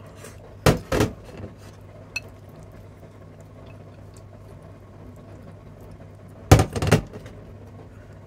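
Ceramic plate and rice bowl clinking and knocking, in two short clusters about six seconds apart, as the dishes are handled and set down on a stainless steel counter. A steady low hum runs underneath.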